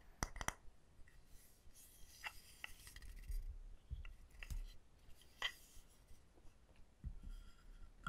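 Light tapping and handling of small wooden objects: scattered, irregular taps and clicks, a few with a short ring, and a brief scratchy rustle about two seconds in.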